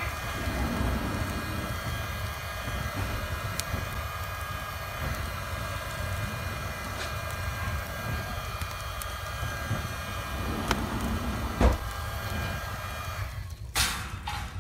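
Bison Airlighter 420's electric blower running steadily with a faint whine, blowing air into a burning wood fire, with a few sharp crackles from the wood. The blower stops near the end, leaving only crackling.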